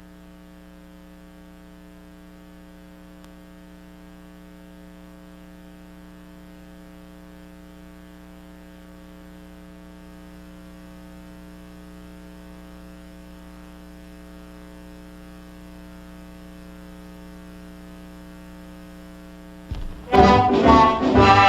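Steady electrical mains hum with a stack of buzzy overtones, the tape's background noise under a silent stretch. About 20 seconds in, loud brass-led orchestral music starts abruptly.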